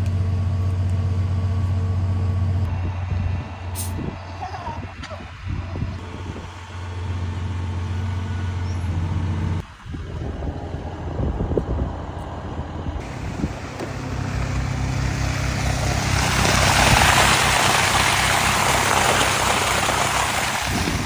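Crane truck's engine running steadily with a low hum. In the second half a loud rushing hiss builds and holds.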